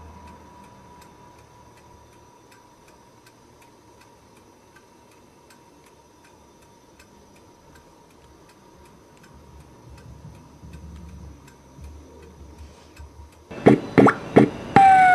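Faint clock-like ticking at about two ticks a second, with a thin steady whine under it. Near the end comes a quick run of loud knocks, followed by a falling whistle-like tone.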